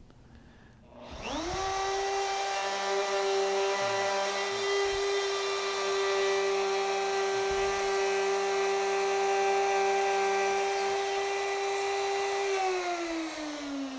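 Plunge router with a bearing-guided bit starting up about a second in, spinning up to a steady whine as it cuts the tongue on the end of a panel for a breadboard end, then switched off near the end and winding down with falling pitch.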